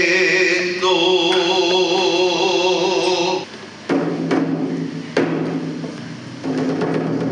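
A sung vidalita, an Argentine folk song, ending on a long held note with vibrato, followed by a few drum strikes and an audience starting to clap.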